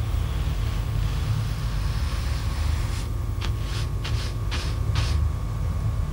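A steady low rumble with a faint hum, and five or six short scratchy swishes in the second half.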